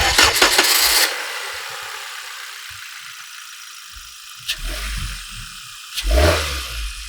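A car being started: a sudden burst of rattling and clatter in the first second that dies away, then the engine turns over and catches about four and a half seconds in, with a short rev about six seconds in.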